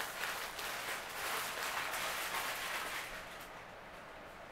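Packaging rustling and crinkling as a parcel is opened by hand, dying down about three seconds in.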